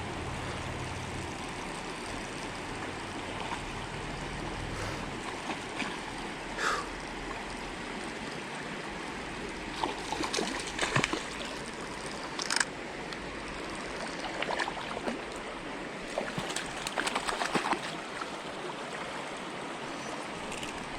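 Low, clear mountain trout stream trickling and gurgling over rocks, a steady rush of water, with a few short, sharp knocks and splashy clatters in the middle and later part.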